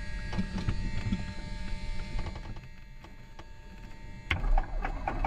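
Electrical hum and steady whining tones through the cockpit intercom. About four seconds in, a sudden loud thump and surge as the Cessna 172's Continental O-300 six-cylinder engine starts and begins to run.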